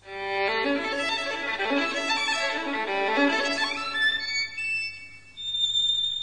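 A violin playing a quick melody of many short notes, thinning to a few held notes near the end.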